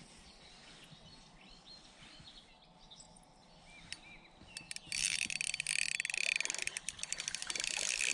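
A few faint bird chirps, then about five seconds in a spinning reel starts being cranked: a fast, dense clicking from its gears and line roller as the lure is retrieved.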